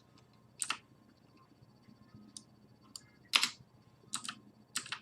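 Scattered keystrokes on a computer keyboard: about half a dozen separate short clicks, the loudest a little over three seconds in.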